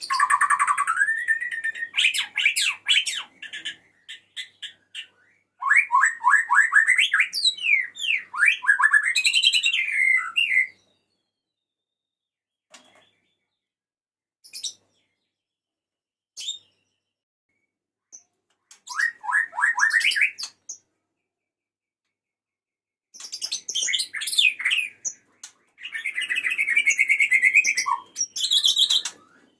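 Male white-rumped shama (murai batu) singing to call a female: four bursts of rapid, varied whistled phrases and trills, with pauses between them broken only by a few short single notes.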